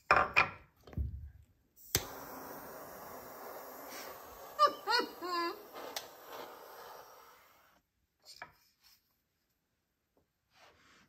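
Wooden smoker parts knocked down on a glass and board, then a butane torch lighter clicks on and its flame hisses steadily for about six seconds as it lights oak wood chips, ending with a light click.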